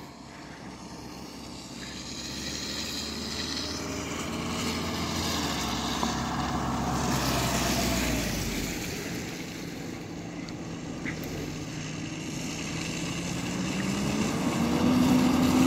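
Motor vehicle traffic driving past. One vehicle grows louder and passes about midway, its engine pitch dropping as it goes by. Another approaches near the end, its engine pitch rising.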